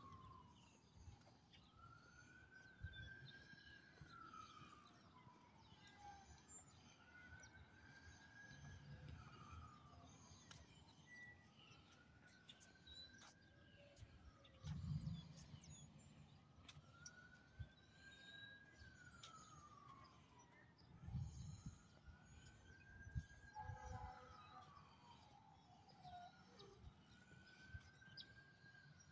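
Faint siren wailing, its pitch rising quickly and then sliding slowly down in a repeating cycle about every four seconds. A few low thumps come through it at intervals.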